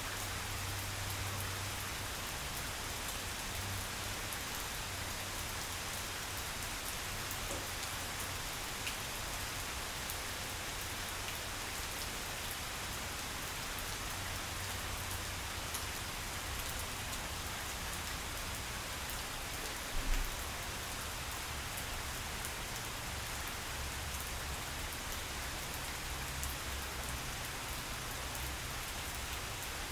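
Steady rain falling on grass, with single drops heard close to the microphone and a low rumble coming and going underneath. A brief low thump about two-thirds of the way through.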